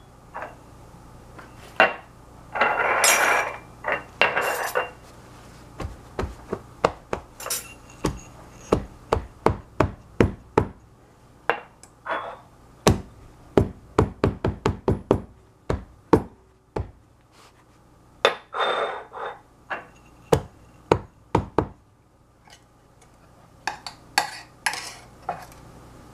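Small glass jars and a ceramic ramekin filled with chocolate mousse being knocked down repeatedly on a folded kitchen towel over a tiled counter, sharp knocks about two a second, to settle and flatten the mousse. A couple of longer rustling bursts come as the towel is handled.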